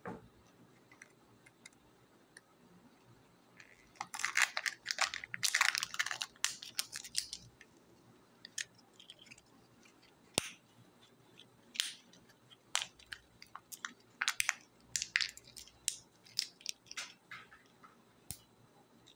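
Crinkling and crackling of a Kinder Joy egg's plastic packaging being peeled open by hand, densest about four to seven seconds in. Then scattered sharp plastic clicks and short crackles as the egg and its toy capsule are handled and opened.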